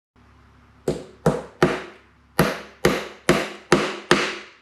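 A run of sharp knocks: three, a short pause, then four more, about two to three a second, each ringing briefly as it dies away.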